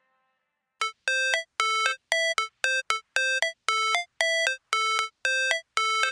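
Background music: after a brief silence, a synthesizer chord repeats in short, clipped stabs, several a second.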